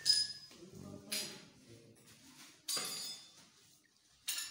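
A stainless steel plate clinks once just after the start, ringing briefly, followed by three short noisy handling sounds.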